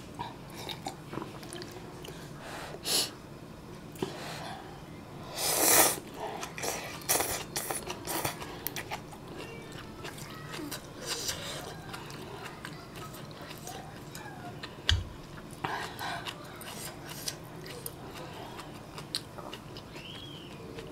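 Close-miked eating sounds of spicy ramen: gulps of water from a glass at the start, then chewing, chopsticks stirring in a stainless steel bowl, and noodles being slurped. Short sniffs and breaths come between, the loudest about six seconds in.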